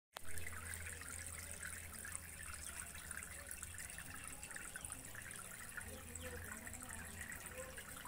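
A small tabletop fountain's stream of water splashing and trickling steadily into a plastic tub of water, with a low steady hum underneath.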